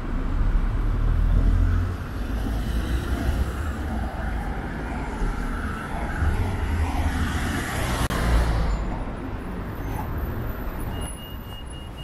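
Road traffic driving past close by: a steady rumble of cars, with the loudest pass, a van going by, about eight seconds in.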